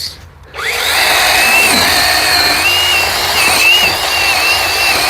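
A 6-inch cordless mini chainsaw on a 20-volt battery spins up with a rising whine about half a second in and cuts through a tree limb, its high motor whine steady but wavering and dipping in pitch as the chain bites into the wood.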